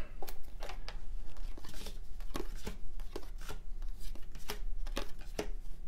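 A stack of 1993 Topps baseball cards being thumbed through one card at a time: a string of light, irregular flicks and snaps of card stock.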